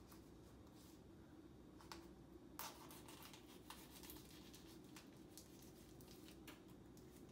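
Near silence under a low steady hum, with a few faint scrapes and clicks from a knife cutting open the plastic wrapping of a package of ground turkey.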